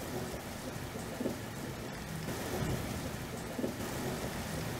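A steady rushing, crackling noise like heavy rain, holding an even level throughout.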